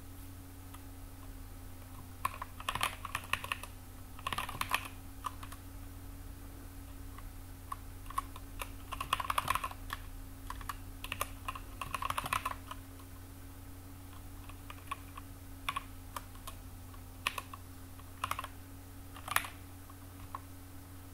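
Typing on a computer keyboard in uneven bursts of key clicks, starting about two seconds in and stopping and starting several times, over a steady low hum.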